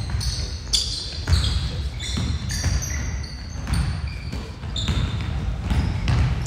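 A basketball bouncing on a gym floor during play: a string of sharp thumps about every half second to a second, with short high squeaks in between, echoing in a large hall.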